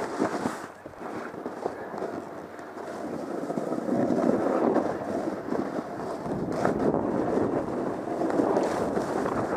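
Snowboard sliding and carving down chopped-up snow: a steady scraping rush that grows louder about three to four seconds in.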